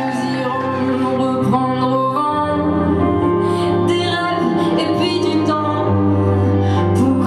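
Live music: a woman singing with electric guitar accompaniment, low notes underneath changing about two and six seconds in.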